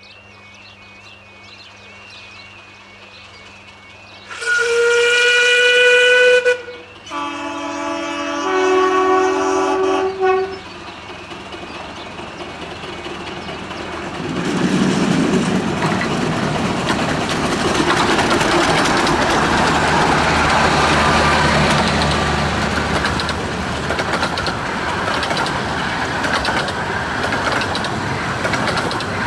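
Steam locomotive whistles on the 15-inch-gauge Romney, Hythe & Dymchurch Railway. A single-note whistle sounds for about two seconds, then a lower, several-note chime whistle sounds for about three seconds, its pitch stepping partway. From about halfway the steam train's running noise builds and stays loud as it passes.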